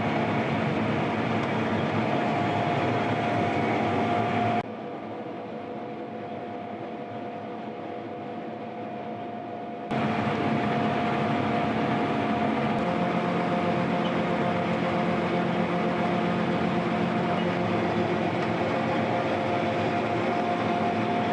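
Combine harvester running steadily, a constant machine hum with a few held tones. About four and a half seconds in, the sound abruptly turns quieter and muffled for about five seconds, then cuts back to the full sound.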